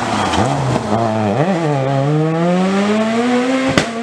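Peugeot 207 rally car engine at full race pace through a corner: the revs drop sharply as it brakes and downshifts, blip once, then climb steadily as it accelerates out. A sharp crack sounds near the end.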